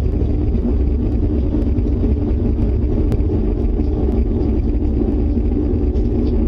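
Loud, steady, deep rumbling drone with sustained droning tones above it, unbroken throughout: the unexplained 'strange sound' the people in the house are reacting to.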